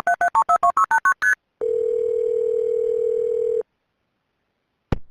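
Telephone line: a quick run of touch-tone keypad digits being dialed, then one steady ringing tone about two seconds long, silence, and a sharp click near the end as the call is picked up.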